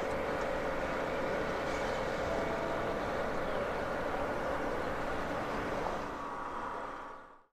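Motorboat engine running steadily, with the rush of water against the hull, fading out near the end.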